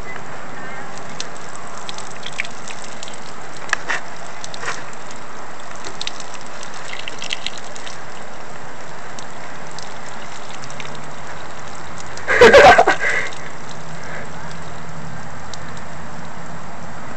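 Urine stream splashing against a concrete wall, a steady hiss. About twelve seconds in, a brief loud rustle close to the microphone.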